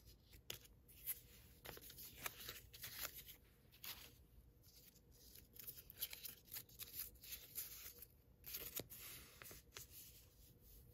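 Faint handling of a roll of washi tape as it is turned and unrolled: light crinkling and peeling of the paper tape, with scattered small clicks.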